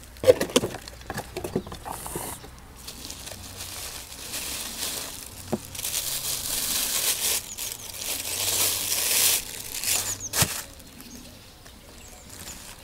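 Plastic wrapping crinkling and rustling as it is pulled off a camera body. The rustle swells in the middle, and there is a sharp click near the end.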